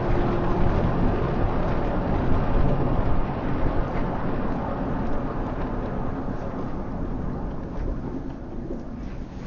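Car driving, a steady rumble of road and engine noise that gradually fades over the few seconds.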